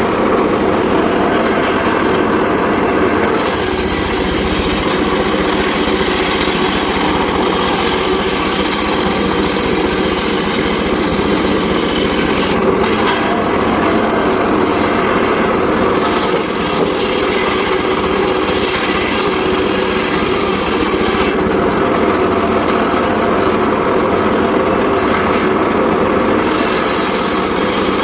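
Homemade circular saw rig running steadily while sawing sengon laut wood. A higher hissing sound comes and goes in stretches of several seconds as the blade cuts.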